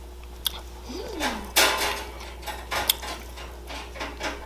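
Close-up eating sounds: wet chewing and mouth noises in short bursts, with a few small sharp clicks. About a second in there is a brief tone that rises and then falls.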